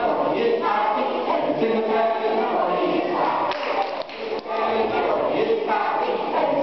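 A group of children singing together in unison, with a short break about four seconds in.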